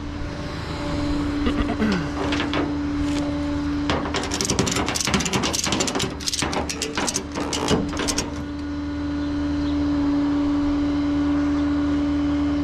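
Vehicle engine idling steadily with a constant hum, while a run of clicks and rattles comes through the middle.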